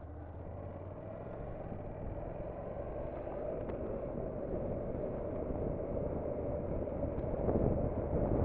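Honda NC750X motorcycle riding noise growing steadily louder as the bike pulls away and gathers speed: wind rush on the on-board camera's microphone over the low hum of the parallel-twin engine, dulled by wind-noise reduction.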